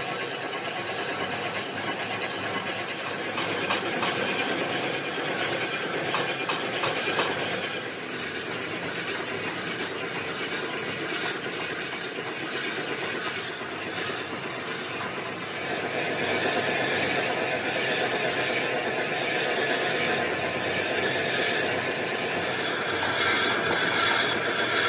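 Large manual lathe machining a big cast gear: steady metal-cutting noise with a thin, high squealing tone, growing louder about two-thirds of the way through.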